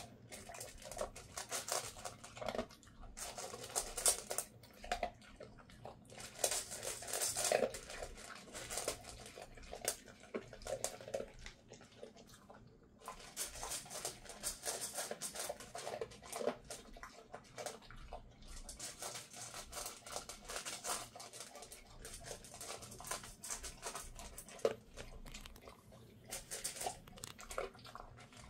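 Dog eating dry kibble from a stainless steel bowl: irregular crunching and clicking throughout.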